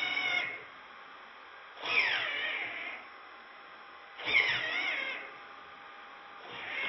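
RC truggy steering servo whining as it swings the front wheels from side to side, heard slowed down in slow-motion playback. It comes as drawn-out whines with a gliding pitch, about one every two seconds, each lasting about a second.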